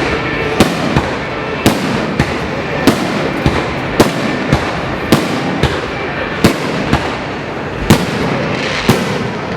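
Fireworks display going off: a quick, irregular series of sharp bangs, one or two a second, over a continuous crackling.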